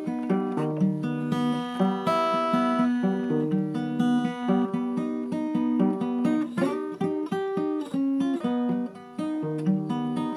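Acoustic guitar playing an instrumental passage of picked notes and strums, with a brief drop in level about nine seconds in.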